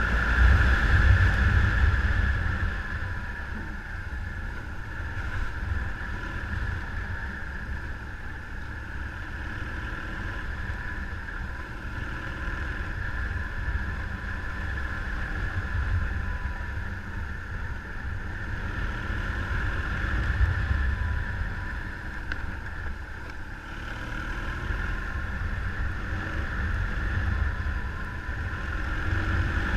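A motor vehicle engine running steadily, its pitch drifting slightly, under heavy low wind rumble on the microphone.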